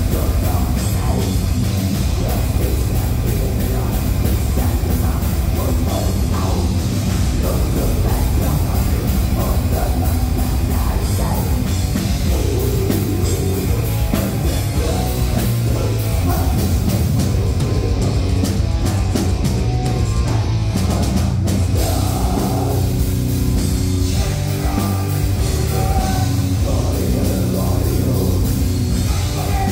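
A heavy metal band playing live and loud: distorted electric guitars over a pounding drum kit, with vocals.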